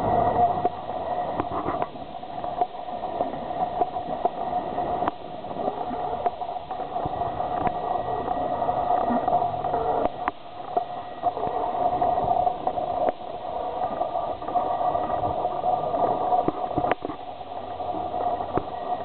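Small boat's motor running steadily at low speed, a constant hum, with scattered sharp clicks and knocks.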